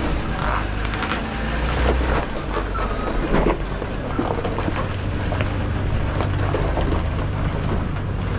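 Off-road truck engine running steadily at low revs while crawling over rocks, with scattered sharp knocks and scrapes.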